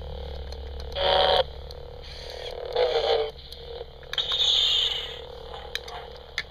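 Motorised Darth Vader toy figure's small gear motor whirring and creaking as it moves, in three short bursts over a steady low hum.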